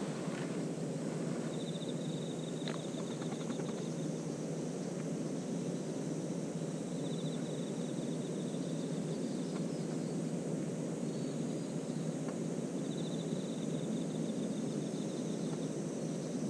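Outdoor waterside ambience: a steady low rumble throughout, with a high pulsing trill that comes and goes every five or six seconds and a couple of faint clicks.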